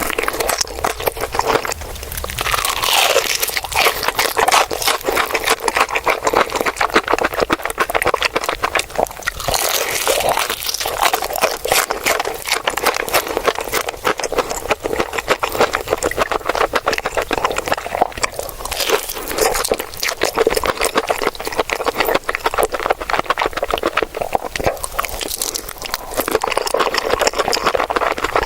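Close-miked crunching and chewing of crispy fried chicken: a dense, continuous crackle of rapid crunches from bites into the crunchy coating.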